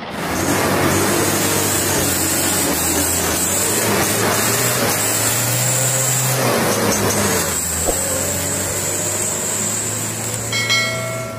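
A vehicle engine running loud and steady with a low drone, then a short bell-like chime rings out near the end.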